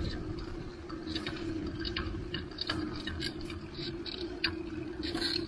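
Bicycle riding along a city street: a steady hum with many light, irregular ticks and clicks from the moving bike.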